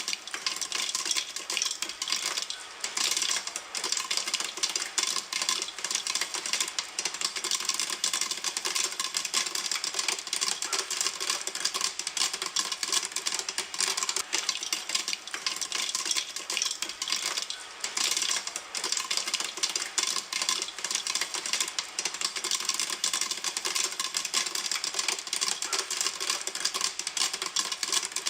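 Popcorn popping in a pan: a dense, steady stream of rapid pops and crackles, many every second, at full boil of popping.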